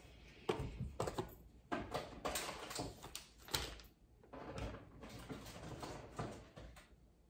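Rustling and crinkling of gift packaging being handled and unpacked, in irregular bursts with a few sharp clicks, dying away near the end.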